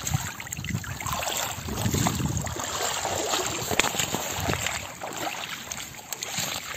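Shallow water splashing and sloshing as a wet cast net is hauled out, with water streaming off the mesh and feet splashing through the shallows.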